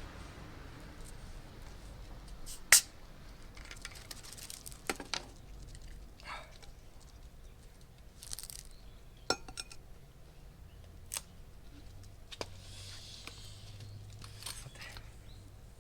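Scattered clinks and taps of tableware and cooking utensils being handled, with one much sharper click about three seconds in.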